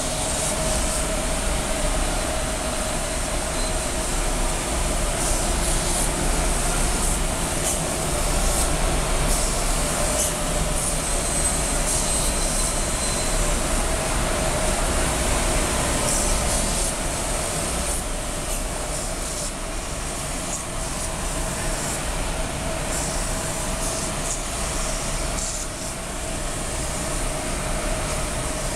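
CNC router milling foam: a steady mechanical running noise with a constant-pitched whine and faint irregular ticks from the cutter.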